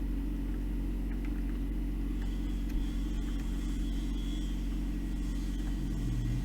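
Steady low electrical hum, mains-type, with a few faint light clicks.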